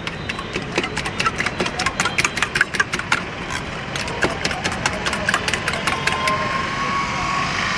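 Steel spoon beating eggs with spices in a stainless steel bowl: rapid clinking of spoon against bowl, about five or six strikes a second, which stops about six seconds in.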